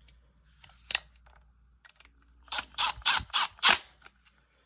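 A screwdriver tightening the terminal screw on a 3-way light switch, with the bare wire wrapped under it: a single click, then a quick run of five or six sharp clicking scrapes.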